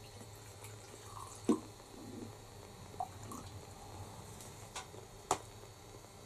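Rum poured from a bottle into a glass, faintly trickling and dripping, with a few sharp clinks and knocks of glass and bottle; the loudest come about a second and a half in and a little after five seconds.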